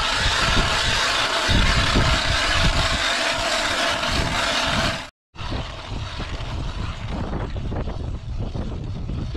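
Strong wind blowing across the microphone in a blizzard: a dense, steady rush for about five seconds, cut off abruptly, then resuming quieter and gustier with low buffeting rumble.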